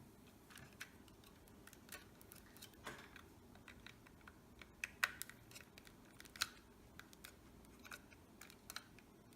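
Faint, irregular clicks and taps of small plastic parts being handled and fitted: the protection frames going onto a toy quadcopter's body. Two louder clicks come a little after the middle.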